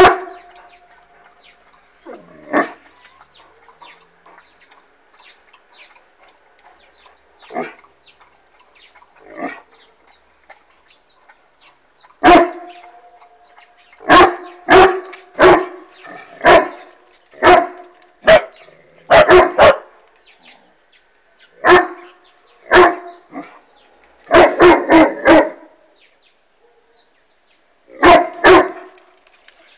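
Irish wolfhound barking. A few spaced barks come first, then loud barks in quick runs through the second half, including a rapid string of four.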